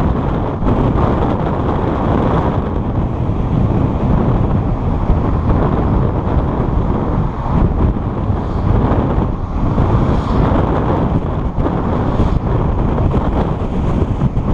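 Steady wind rumble on the microphone of a car-mounted GoPro while driving, mixed with the car's road noise.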